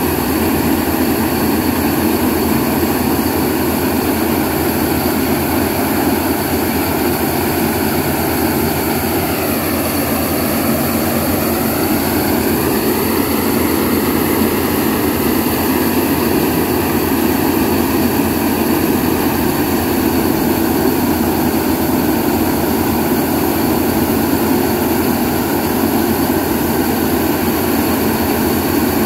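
Corn combine harvester's diesel engine running steadily at working speed. Its pitch sags about ten seconds in and climbs back a few seconds later.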